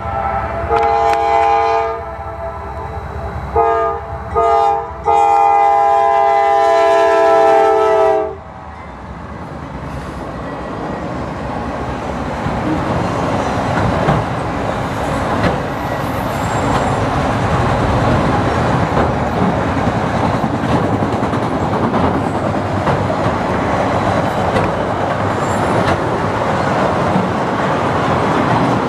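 Freight train's air horn sounding a chord in several blasts, the last one long and ending about eight seconds in, then the autorack train rolling past with a steady rumble of wheels on rail that grows louder.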